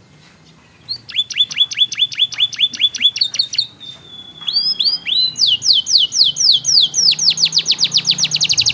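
Domestic canary singing loudly. A rapid series of repeated falling notes is followed by a brief held whistle near the middle, then another run of notes that speeds up into a fast, continuous trill.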